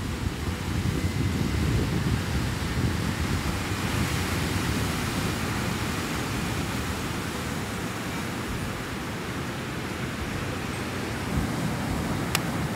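Surf breaking and washing up a sandy beach in a steady roar of waves, with wind buffeting the microphone. A short sharp click comes near the end.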